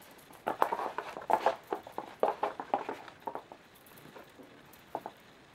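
A quick run of soft thumps and scuffs for about three seconds, then two more near the end: a Bengal kitten's paws pouncing and scrabbling on carpet as it chases a feather wand toy.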